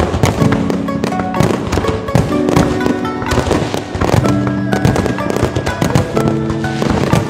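Fireworks going off in rapid succession, sharp bangs and crackling many times a second, over music with long held notes that change every second or two.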